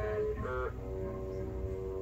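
Background music from a video playing on a computer monitor: a slow melody of held notes that steps in pitch about half a second in, then holds one long note.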